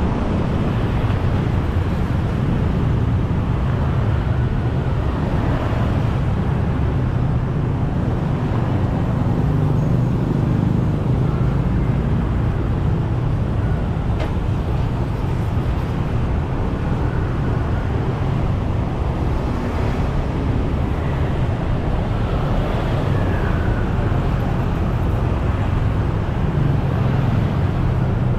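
Street traffic noise: a steady low rumble of vehicles passing, without a break.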